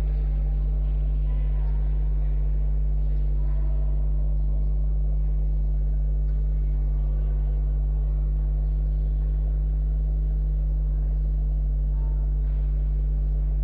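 A steady, unchanging low hum, with faint indistinct background sounds underneath.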